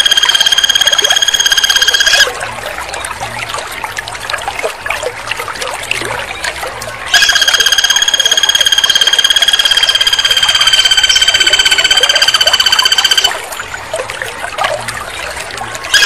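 Caged flameback woodpecker giving long, even, high-pitched rattling trills: one trill ends about two seconds in, and another runs from about seven to thirteen seconds in.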